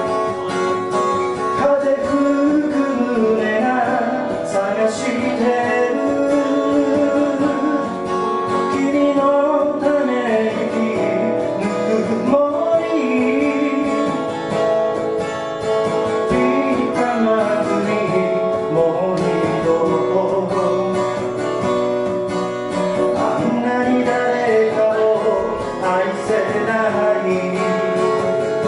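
Solo steel-string acoustic guitar playing an instrumental passage of a slow ballad live, chords ringing steadily, with a wavering wordless melody line over it.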